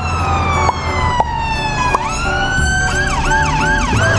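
Siren sound effect: a long falling wail, then a rise, then quick repeated wails about three a second near the end, over a steady low hum.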